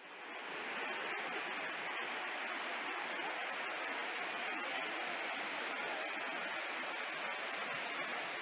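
Steady rush of water from a small waterfall, an even hiss with a thin, steady high-pitched note above it; it fades in at the start.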